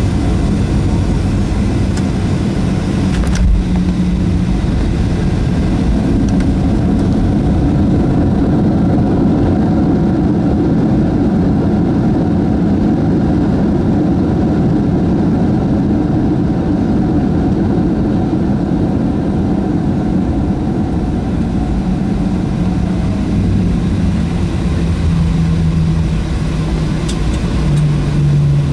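Boeing 737-700 cabin noise on the landing roll, dominated by its CFM56 engines. A single knock comes about three seconds in as the wheels touch down, then a heavier engine rumble builds as reverse thrust slows the jet on the runway. The rumble eases off over the last several seconds.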